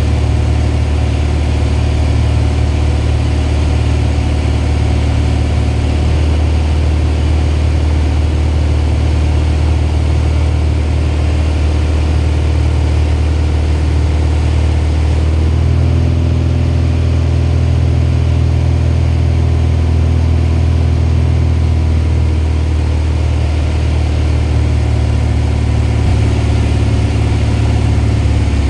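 Single-engine light aircraft's piston engine and propeller running steadily as heard inside the cockpit, on approach to land. The engine note changes about halfway through.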